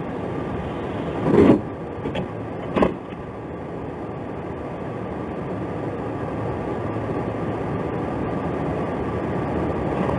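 Steady vehicle and road noise, with two short louder bursts about one and a half and three seconds in.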